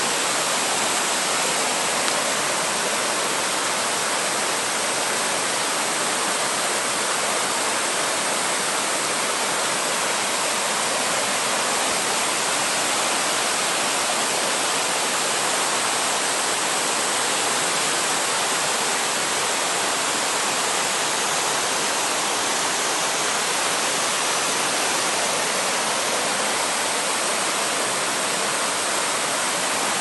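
Two small waterfalls cascading over boulders into a rocky mountain stream: a steady, unbroken rush of falling and splashing water.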